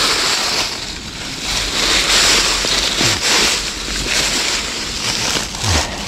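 Dry fallen leaves rustling and crackling as they are brushed aside and shifted under a crouching person, a dense rustle that rises and falls in swells.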